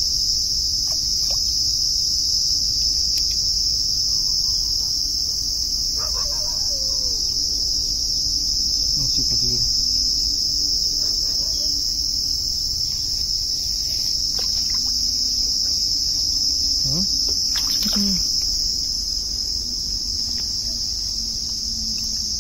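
Steady high-pitched insect chorus, unbroken throughout, with a few faint bird calls.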